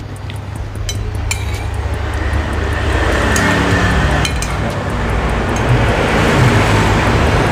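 Motor vehicle noise from the road, a low rumble with a rushing hiss that swells over a few seconds and then holds steady. Over it come a few light clinks of a metal spoon against a ceramic soup bowl.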